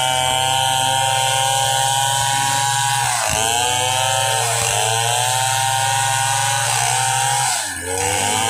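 Stihl two-stroke chainsaw running at full throttle as it cuts lengthwise through a timber slab. Its engine speed sags and recovers under the load a few seconds in and again about a second later, then dips more sharply near the end with a brief drop in loudness.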